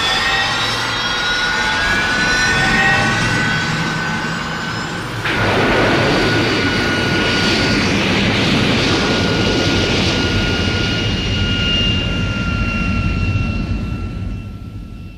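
Super Mechagodzilla sound effect: a steady jet-engine-like roar laced with high whining tones. It changes abruptly about five seconds in and fades away near the end.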